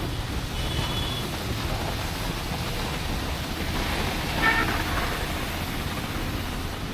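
Rainy street traffic: a steady hiss and rumble of rain and passing vehicles. A short high horn toot sounds about half a second in, and a brief vehicle horn honks about four and a half seconds in.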